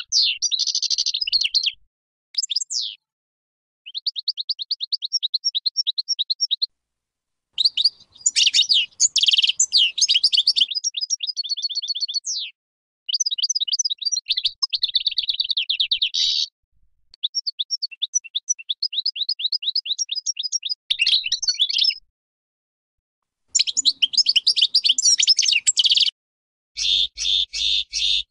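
European goldfinch of the large 'major' type singing: fast twittering and trilled phrases of a few seconds each, separated by short pauses. Near the end comes a rapid, evenly pulsed phrase.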